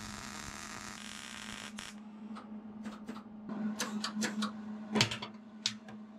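Wire-feed welder humming steadily, with a hiss for about the first two seconds and then scattered clicks and knocks; the welder has run out of wire.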